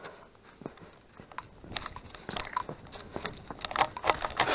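Footsteps crunching along a trail: a run of irregular crunches and clicks, sparse at first and growing denser and louder from about halfway, loudest near the end.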